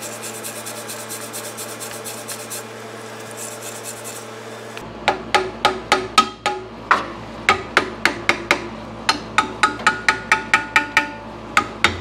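Quick metal-on-metal taps, about three to four a second, each with a short ring, starting about five seconds in: tapping at a Cadillac 472 V8's timing cover to break it free of a corroded dowel pin. Before the tapping, a steady hum with a hiss that comes and goes.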